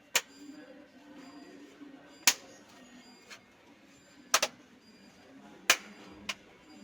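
Sharp plastic clicks from a laptop keyboard being worked on, five of them about one to two seconds apart, one doubled, over a faint steady background.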